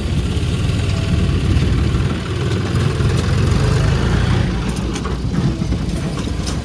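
Diesel engine of heavy earthmoving or farm machinery running steadily with a dense low rumble, with a few faint knocks in the second half.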